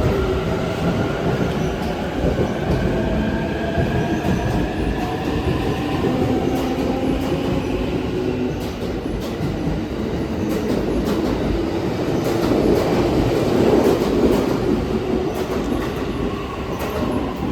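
Electric commuter train pulling away from the platform: a motor whine rising in pitch as it gathers speed, over the steady rumble of wheels on rail.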